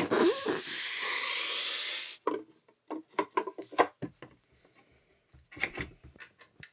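Handling noise from moving heavy resin statue parts and packaging: a loud rubbing, scraping rush for about two seconds, then a scatter of light knocks and clicks.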